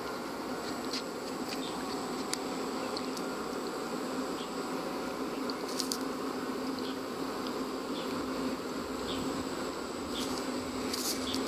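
Insects buzzing in a steady drone, with a thin, high, steady whine above it and a few faint short chirps and ticks.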